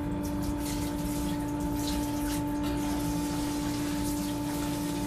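Tormach 1100MX coolant pump running with a steady hum while coolant splashes from a hose onto chips in the chip tray. The pump is a small motor, which the owner thinks is an eighth horsepower. Its flow is too weak to wash down big clumps of chips.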